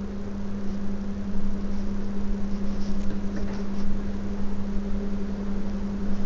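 Hot water poured from a steel tumbler into a pot of marinated chicken: a steady hiss of pouring liquid, over a constant low hum.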